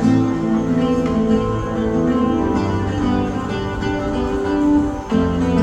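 Music with plucked acoustic guitar playing held notes, with a brief pause about five seconds in.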